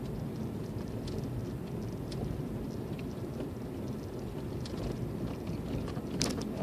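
Car driving slowly on a snow-covered road, heard from inside the cabin: a steady low rumble of engine and tyres, with scattered light clicks and a louder click near the end.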